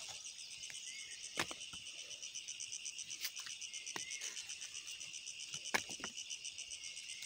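Insects chirring in a steady, pulsing high drone, with a few short knocks as potatoes are picked up and dropped into a woven bamboo basket.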